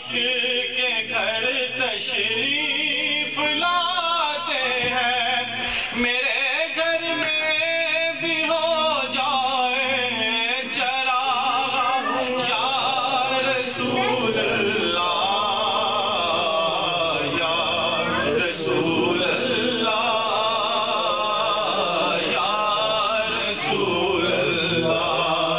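A man singing a naat, an Urdu devotional poem in praise of the Prophet, in one continuous ornamented line with a wavering pitch.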